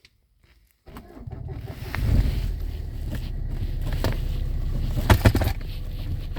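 A 2011 Renault Scenic's engine starting about a second in, building over the next second, then running steadily at idle. There are a couple of sharp clicks about five seconds in.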